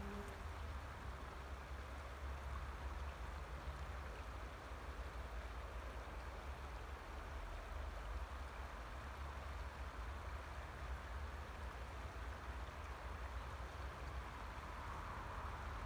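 River water flowing, an even rushing hiss with no breaks, over a steady low rumble.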